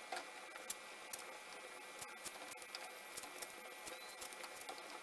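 Knife cutting a raw green plantain held in the hand into strips: faint, irregular small clicks and taps as the blade goes through the firm flesh.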